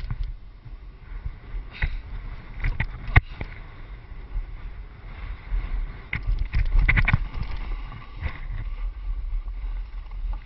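Wind rumbling on a helmet-mounted action camera's microphone while a board slides and scrapes down a snow slope, with scattered sharp knocks and clatters from the rider's gear jolting over the snow, clustered about three seconds in and again around six to seven seconds.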